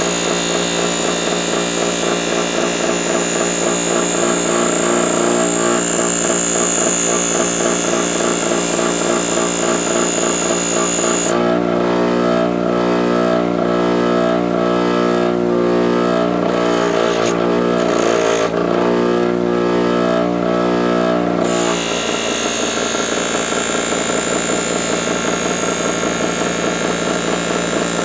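Electric polishing machine running steadily with a high whine as stainless steel trim is buffed. Its sound changes for about ten seconds in the middle, as the load on it shifts.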